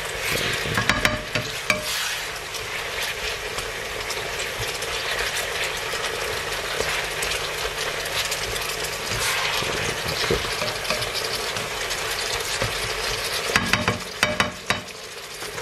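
Beef, peppers and mushrooms sizzling in a hot non-stick frying pan while a plastic spatula stirs and scrapes through them. The sizzle drops off near the end, with a few clicks of the utensil against the pan.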